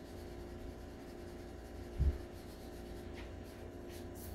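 Graphite pencil strokes scratching faintly on drawing paper as fur is shaded in, with a single dull low thump about two seconds in and a steady low hum underneath.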